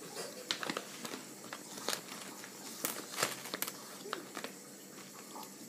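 Hand rummaging in a Skittles container for a sweet: the packaging crinkles and rustles, with a handful of sharp clicks and rattles as the candies are stirred.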